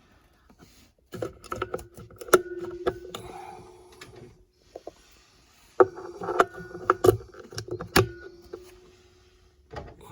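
AAA batteries being fitted into a plastic battery compartment: two bouts of clicks, knocks and rattles, the first starting about a second in and the second about halfway, each with a ringing tone under the clicks.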